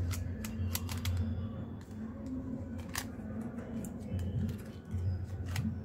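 Plastic fruit-shaped twisty puzzle cubes, an orange cube and then a banana cube, being turned in the hands: irregular sharp clicks of the layers snapping round, several a second.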